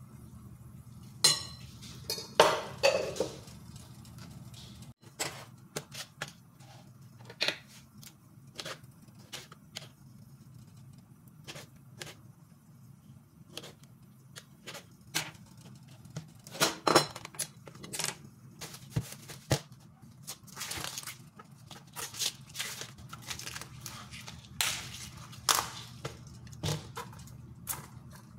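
Kitchen knife clicking and tapping against a plastic cutting board as small tomatoes are sliced: a long run of irregular, sharp clicks, some in quick clusters. Near the start come a few louder clinks with a short ring, like a utensil on a glass bowl.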